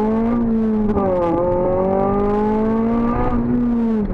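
Honda Civic Type R FN2's four-cylinder engine through a Cobra resonated sports exhaust, accelerating: the revs climb, drop sharply at a gear change about a second in, climb again, then fall away near the end.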